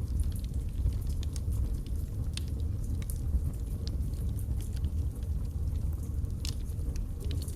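Wood fire burning in a fireplace: a steady low rumble of flames with irregular sharp crackles and pops from the burning logs, several a second.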